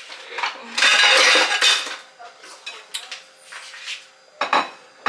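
Plates clattering: a rattling clatter about a second long near the start, then a few sharp clinks.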